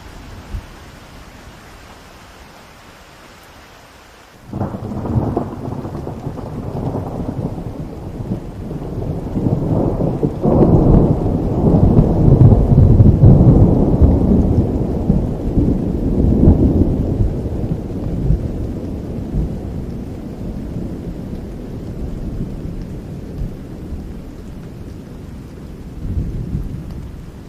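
Rain falling steadily, with a long roll of thunder that breaks suddenly about four seconds in, builds to its loudest midway and slowly rumbles away, and a smaller rumble near the end.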